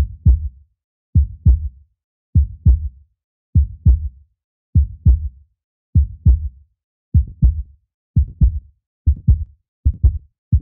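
Heartbeat sound effect: paired low thumps (lub-dub), repeating about once a second and gradually speeding up toward the end.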